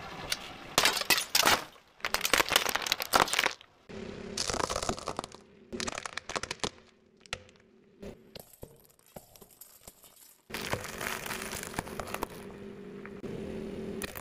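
Car tyre rolling over and crushing objects: several separate bursts of cracking and crunching as glass and brittle things break under it. The loudest breaking comes in the first few seconds, with another crunching run about ten seconds in.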